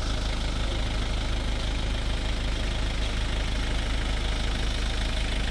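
Engine of a light truck idling steadily with a low rumble.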